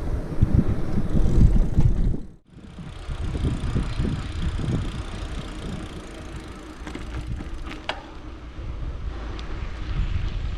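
Mountain bike being ridden on a trail: wind rushing over the microphone, with the low rumble of the ride and a few rattles and clicks. The sound drops out briefly about two seconds in.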